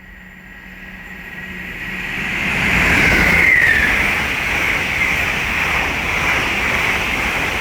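LNER Class 801 Azuma electric train, two units coupled, passing through at speed. The rush swells over about three seconds as it approaches, with a short falling whine as the front goes by, then a steady loud rush of wheels on rail and air as the carriages pass.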